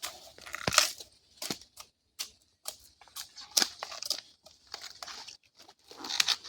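Dry leaves and twigs crackling and snapping in irregular clicks, some louder than others, as forest vegetation is trodden on or handled.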